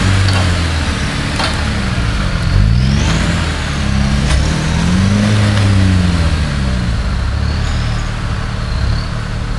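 Off-road trials vehicle's engine revving hard as it claws up a muddy bank, its pitch rising and falling several times as the throttle is worked, with a few sharp knocks.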